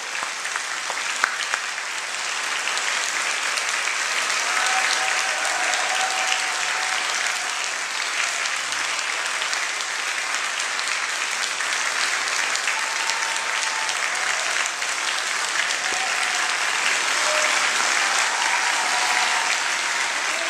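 Audience applauding steadily: dense, even clapping after a performance.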